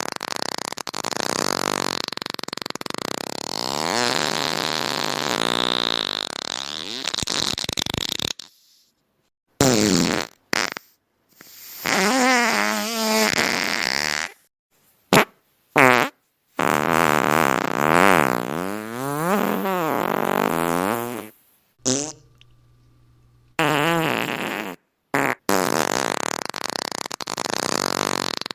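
A string of fart sounds separated by short silences. A long, wavering one lasts about eight seconds at the start, then come several brief blips and longer drawn-out ones whose pitch wobbles up and down.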